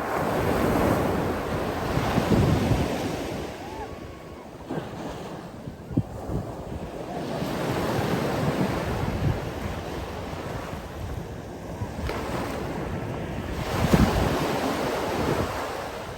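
Sea waves washing onto a shore: a continuous rush of surf that swells and falls back, with surges near the start, about halfway through and again near the end.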